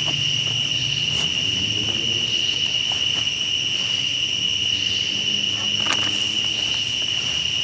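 Steady, high-pitched chorus of night insects, an unbroken shrill drone, with a few faint knocks and rustles of gear being handled.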